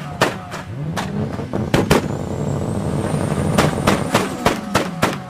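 Toyota Supra MK4's 2JZ inline-six being revved, its pitch rising and falling, with a string of sharp exhaust bangs and pops over it. The bangs come in a few clusters early on and in a rapid run in the second half.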